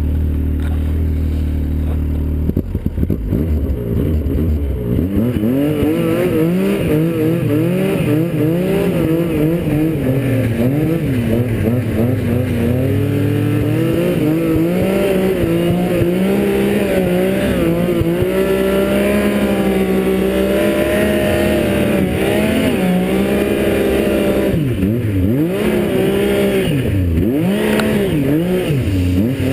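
Snowmobile engine running hard in deep powder snow. It holds a steady pitch for the first couple of seconds, then revs up and down over and over.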